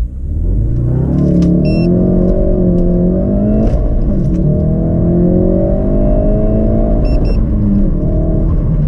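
Ford Focus RS's 2.3-litre turbocharged four-cylinder at full throttle from a standstill, heard inside the cabin: the engine note climbs with the revs, drops at an upshift, and climbs again, twice over.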